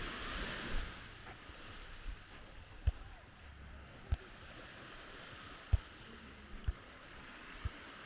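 Surf washing onto a beach, loudest in the first second and then easing off. Short, low thumps come roughly once a second throughout.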